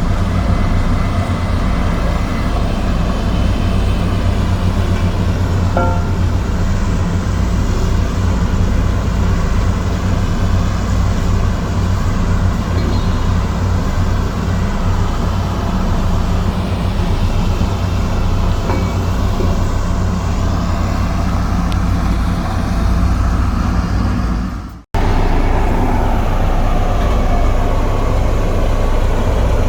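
Komatsu D58E bulldozer's diesel engine running steadily and loudly. The sound cuts out for an instant near the end, then resumes.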